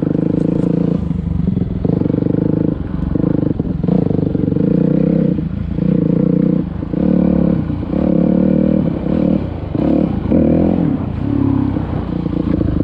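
Dirt bike engine running under way on a gravel trail. The engine note repeatedly drops and comes back about every second, as the throttle is rolled off and on.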